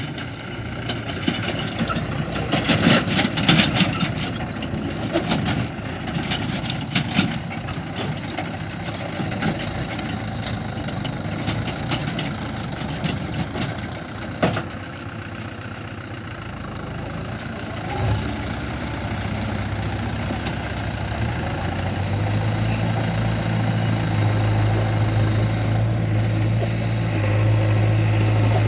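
Diesel engines of a backhoe loader and tractor running at work, with a run of clattering knocks in the first several seconds. About two-thirds of the way in, a steady low engine drone comes in and grows louder.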